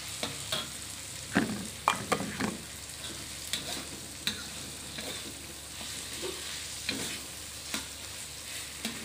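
Prawns and petai frying in sambal in a metal wok with a steady sizzle, while a metal spatula scrapes and clacks against the wok as the food is stirred and tossed. The scraping is loudest about one and a half to two and a half seconds in.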